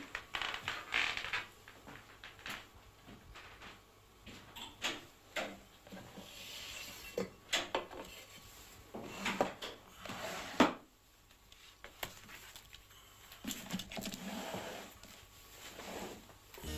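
Objects being handled on a wooden desk: scattered clicks, light knocks and rustles at irregular intervals, with one sharper knock about ten and a half seconds in.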